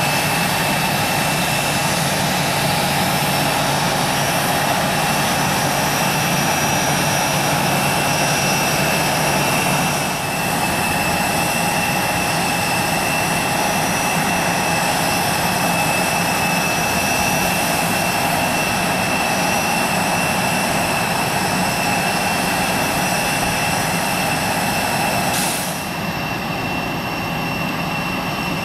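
Jet engines idling with a steady high-pitched whine. About two thirds of the way through there is an abrupt change to a duller, more distant jet engine sound, with less of the high hiss.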